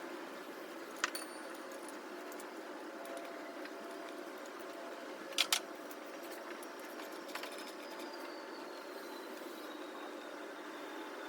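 Steady background hum with a single sharp click about a second in and a louder double clack about five and a half seconds in, the sounds of hand tools or parts being handled.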